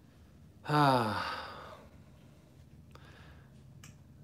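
A person's voiced sigh, falling in pitch, about a second in.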